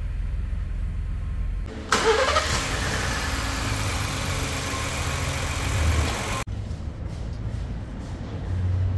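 Ford F-150 engine idling just after an oil change. A low hum at first, then from about two seconds in a much louder rushing, hissing engine-bay sound with a brief rising tone, which cuts off abruptly about four and a half seconds later, leaving quieter idling.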